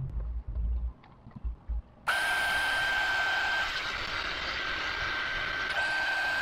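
A handheld power tool's electric motor starts abruptly about two seconds in and runs at a steady high whine with a hiss over it. Before it there are only low, irregular rumbles.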